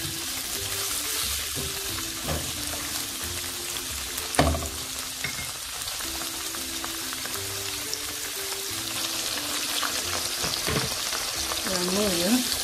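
Prawns and spring onion sizzling in a frying pan while being stirred with a spatula, with one sharp knock about four seconds in. The frozen prawns' released water is still cooking off.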